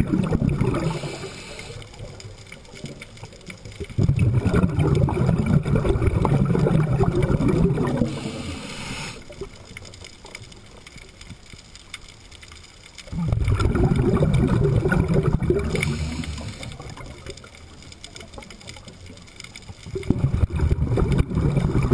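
Scuba diver's exhaled bubbles rumbling and gurgling out of the regulator close to a mask-mounted camera, in bursts of three to four seconds about every nine seconds, with quieter stretches between them as the diver breathes in.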